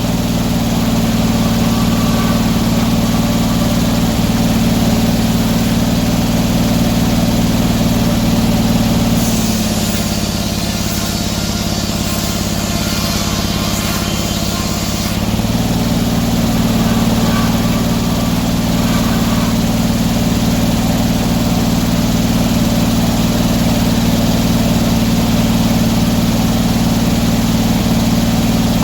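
Sawmill engine running steadily. For about five seconds near the middle its pitch sags under load while the hiss of the blade cutting through a pine log joins it, then the engine picks back up.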